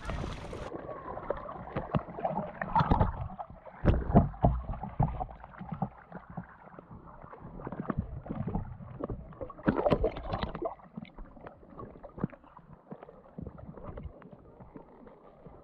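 River water sloshing and gurgling around a submerged action camera, with irregular muffled knocks and bumps. The sound turns dull and muffled about a second in as the microphone goes under the surface.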